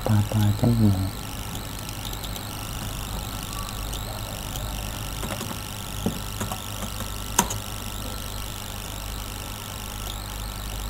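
Steady background hum with a brief, louder low-pitched sound in the first second and two sharp mouse clicks about six and seven and a half seconds in.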